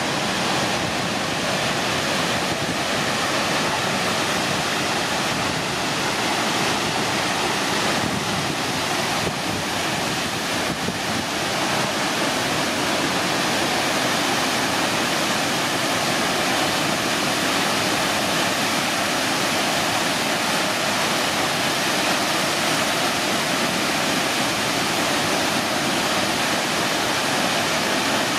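Tall twin waterfall crashing onto rocks: a loud, steady rush of falling water.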